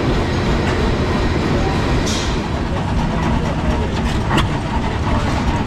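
Old stationary engines running, a steady mechanical noise, with two sharp clicks about four seconds in.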